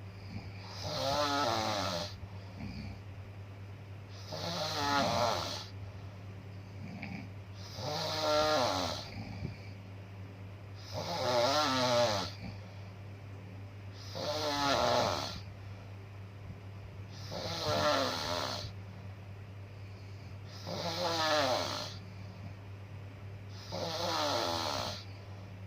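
A sleeper snoring in a slow, even rhythm. There are eight rasping snores about three seconds apart, each lasting about a second and a half, over a low steady hum.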